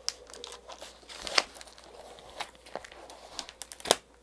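Plastic shrink wrap being picked at and torn off a cardboard box, crinkling with scattered sharp crackles; two louder snaps, about a second and a half in and near the end.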